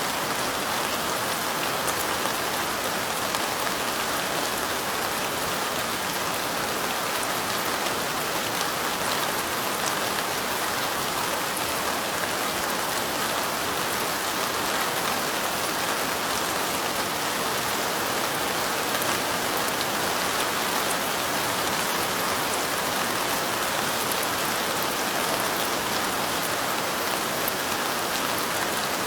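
Steady light rain pattering on window glass: an even hiss of rainfall with faint individual drop ticks scattered through it.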